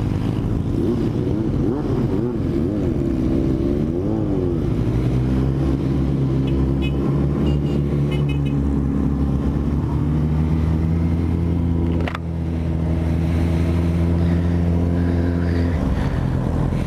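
Motorcycle engine running under a rider on the move. Its pitch rises and falls several times over the first few seconds, then holds steady while cruising. About twelve seconds in the sound drops briefly, with a sharp click.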